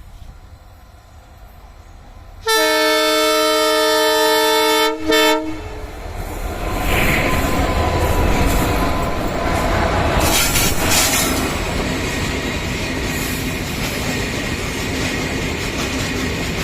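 A pair of WDG4 diesel locomotives heading a goods train. A faint rumble as the train nears, then a long multi-tone horn blast with a brief second toot at its end. After that, the loud, steady noise of the locomotives' engines and the wheels on the rails as the train passes close by.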